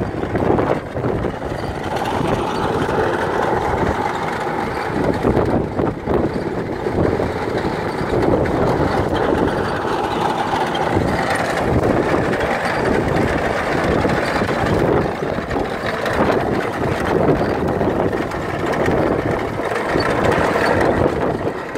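Tractor engine running steadily under load while a TrenchIt TCT AG chain trencher's digging chain cuts a drainage trench through soil, giving a continuous grinding clatter.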